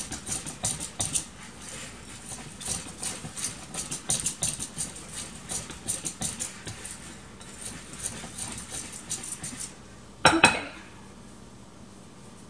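Danish dough whisk stirring wet biscuit batter in a mixing bowl: a quick, rhythmic run of scrapes and clicks against the bowl, several strokes a second. The stirring stops about ten seconds in with two sharp knocks as the whisk is tapped on the bowl.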